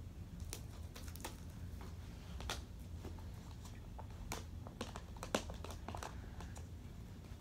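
Faint, scattered sticky clicks and squelches of glue slime being mixed, at irregular intervals.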